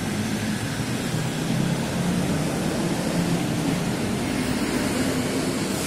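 Street traffic passing: a steady rumble of engines and tyres, a little louder through the middle.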